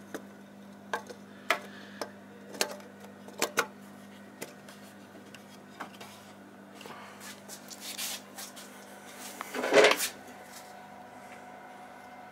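Hard plastic limit-switch brackets being handled against a CNC mill's frame: a string of sharp clicks and knocks, then a louder scraping rustle just before ten seconds in.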